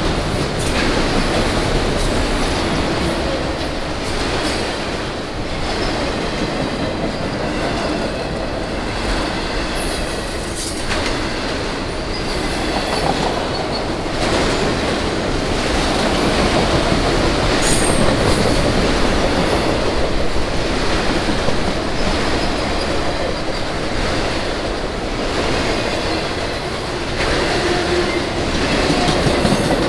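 Freight train rolling past: a loud, steady rumble of steel wheels on rail, with knocks over rail joints and some high wheel squeal.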